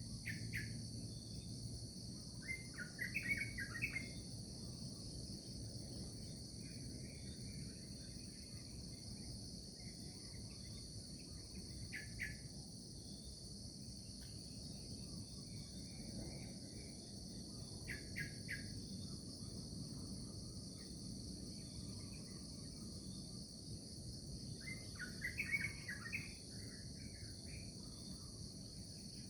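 A continuous high-pitched insect chorus drones steadily while birds chirp in short scattered bursts, busiest near the end, over a faint low rumble.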